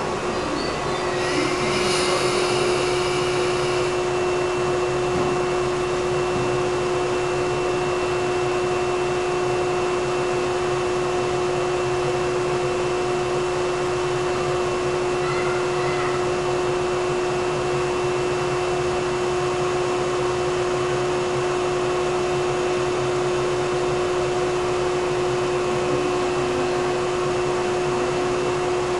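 Electric passenger train standing at the platform, its onboard equipment giving a steady whirring hum with a constant tone. A brief hiss rises about a second in and fades by about four seconds.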